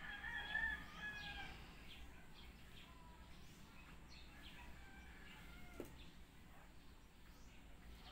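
One drawn-out animal call lasting about a second and a half at the start, then faint scattered bird chirps.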